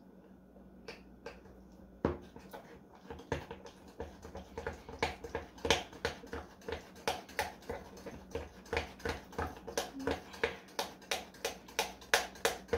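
A metal utensil clinking against a glass measuring cup as a thick filling is stirred. The clinks start about two seconds in and go on at an even rhythm of about three a second.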